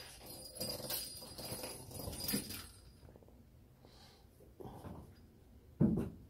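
Kittens playing on a hard floor: light scuffles and taps of paws, with one louder thump near the end.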